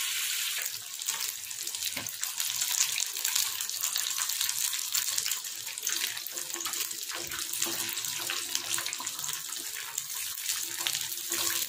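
Breaded chicken fingers deep-frying in oil over a very low gas flame: a steady sizzling hiss full of fine crackles.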